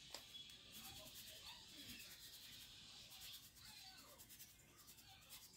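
Near silence, with the faint rustle of a Sazon seasoning packet being shaken out over raw chicken pieces in a steel bowl, as a quick run of fine ticks between about one and three seconds in.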